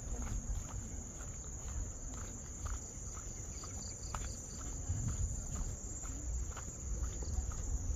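A chorus of insects in a steady, high-pitched drone, with a walker's footsteps falling about twice a second.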